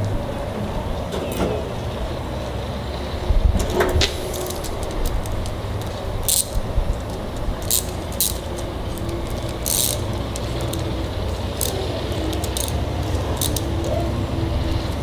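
Scattered sharp metallic clicks and clinks of a hose clamp and hand tools being worked on a truck's tailgate handle, over a steady low rumble.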